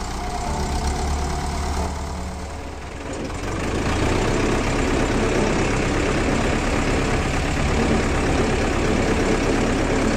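HMT 5911 tractor's diesel engine running. About three seconds in it becomes louder and rougher, and holds steady from there.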